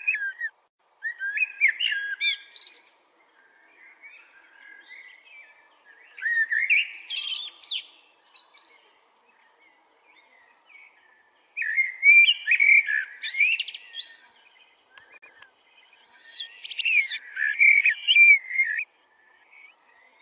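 Bird singing in repeated phrases of rapid, high chirping notes, each phrase about two to three seconds long with short pauses between; four loud phrases and one fainter one.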